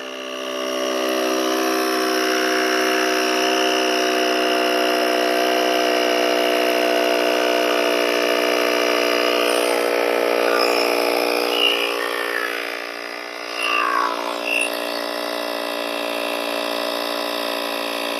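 Portable electric tire inflator's motor and pump running steadily with an even buzz, inflating a bicycle tire toward its 65 PSI auto-stop setting. The level dips briefly about two-thirds of the way through.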